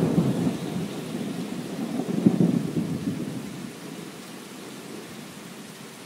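Thunder rumbling and dying away over steady rain, with a second rumble about two seconds in. The rain goes on more quietly toward the end.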